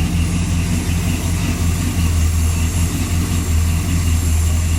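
1966 Chevy truck's engine idling steadily with an even low hum as it warms up.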